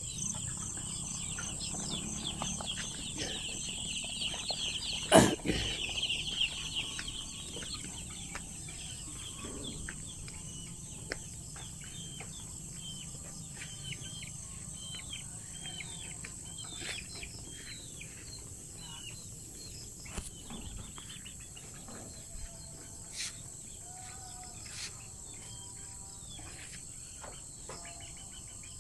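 A flock of farm chickens calling and clucking, many short overlapping calls, busiest in the first several seconds. A single sharp knock comes about five seconds in, over a steady high-pitched drone of insects.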